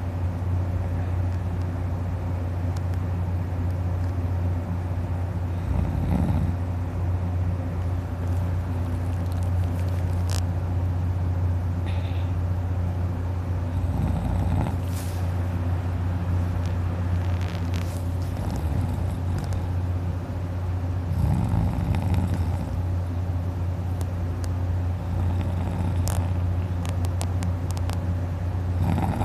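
A man snoring heavily in deep sleep, with a louder snore about every seven or eight seconds over a steady low hum.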